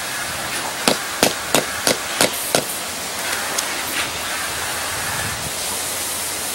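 Concrete pavers being tapped down into a pea-gravel bed to seat them: six sharp taps about three a second, then two lighter ones, over a steady background hiss.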